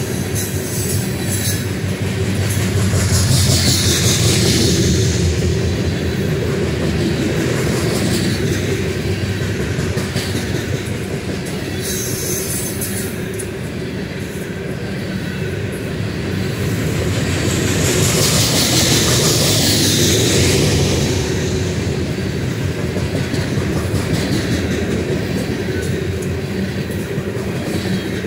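Freight train of covered hopper cars rolling past close by: a steady rumble of steel wheels on the rails with clickety-clack over the joints. A high hiss swells twice, a few seconds in and again past halfway.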